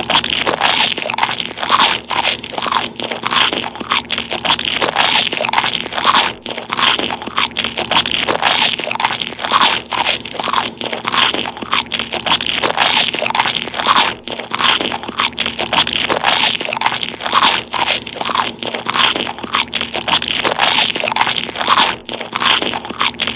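A person chewing gum close to the microphone: a continuous run of sticky, crackly chewing and mouth sounds.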